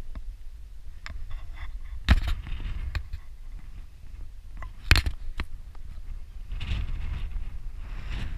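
Wind buffeting an action camera's microphone, with a few sharp clicks and knocks; the two loudest come about two seconds in and about five seconds in.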